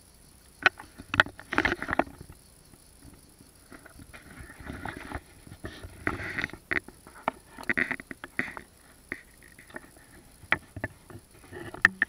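Someone wading through a shallow, pebbly river: irregular splashes of water with sharp knocks scattered among them.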